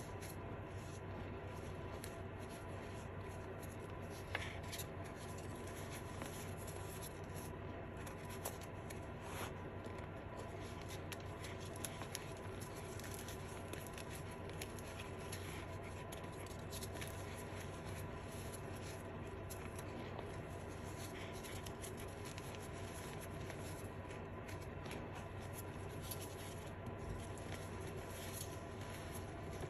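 Fingers crumbling and rubbing blue reformed chalk, crushed bars and powder, giving a soft, steady crackle and rustle with a few sharper crunches now and then. A steady low electrical hum sits underneath.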